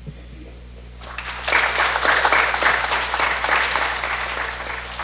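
Audience applauding. The clapping starts about a second in, builds quickly, then slowly fades.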